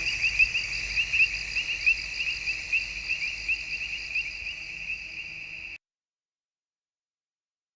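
Chorus of crickets chirping in a fast, dense, high-pitched trill, a recorded night ambience. It fades slightly and cuts off abruptly about six seconds in, leaving dead silence.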